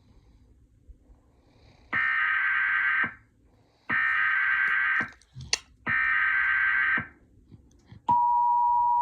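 Emergency Alert System signal: three one-second bursts of screechy digital SAME header data, a second apart. About a second before the end the steady two-tone attention signal starts. The alert carries a National Weather Service tornado warning.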